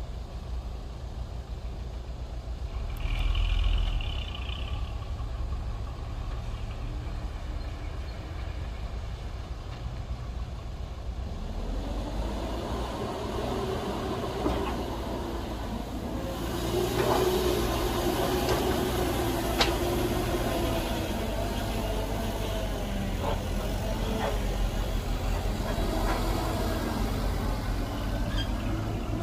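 Caterpillar E120B excavator's diesel engine running steadily, with a brief high-pitched sound about three seconds in. From about twelve seconds in it works harder, with a wavering hydraulic whine and a few sharp clanks.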